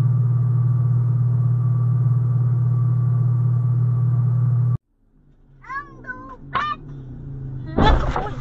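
A steady low hum with a faint high tone, which cuts off abruptly about five seconds in. A few short, wavering high-pitched cries follow, then near the end a loud crash as a person riding a motorbike slams into the back of a pickup truck.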